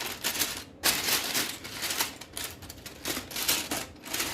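Loose Lego pieces rattling and clicking as a hand rummages through a container of parts, in several bursts of dense small clicks with short pauses between.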